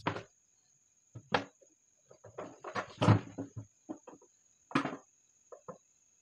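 Handling noise of wiring work on a switchboard: irregular clicks and knocks of plastic parts, wires and a screwdriver being handled, with the busiest, loudest clatter around the middle.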